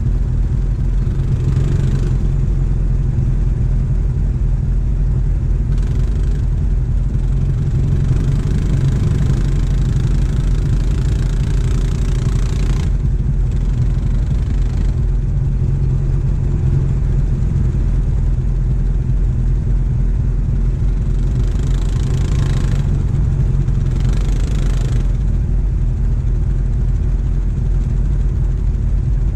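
ATV engines: a steady, close engine drone under repeated bursts of revving from a quad stuck in a deep mud hole, its rider gunning it to spin the tyres and power it free. The longest burst lasts about six seconds, with shorter ones before and after.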